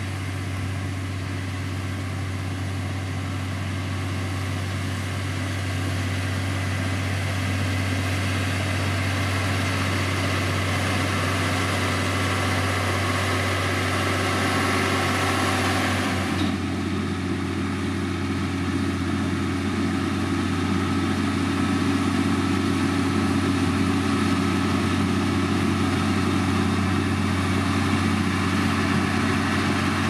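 Diesel engine of heavy road-construction machinery running steadily with a deep, constant hum. About halfway through, the higher hiss over it cuts off suddenly, and the engine grows slightly louder toward the end.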